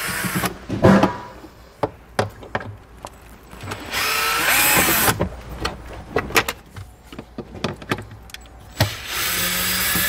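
Cordless power driver backing out Phillips head screws. The motor runs three times, about a second each: near the start, about four seconds in, and near the end. Small clicks and handling knocks come between the runs.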